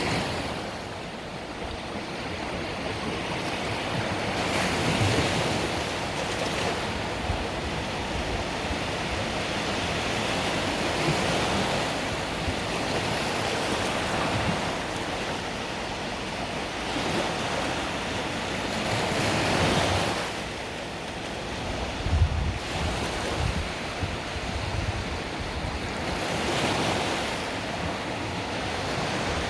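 Mediterranean waves breaking on the beach and washing back, a steady surf hiss that swells and fades every few seconds. Wind buffets the microphone now and then with a low rumble, most clearly about two thirds of the way in.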